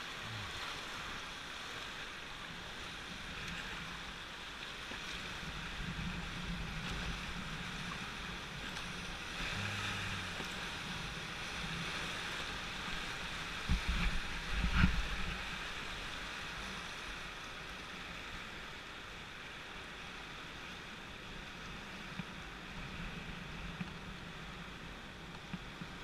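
Whitewater of a class III river rapid rushing steadily around a raft. About halfway through come a couple of loud thuds and splashes as the raft's bow hits the waves.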